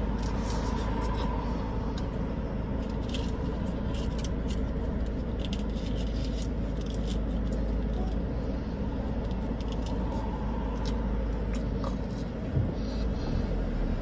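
Steady low rumble of a car's interior, with faint scattered clicks and a soft thump near the end.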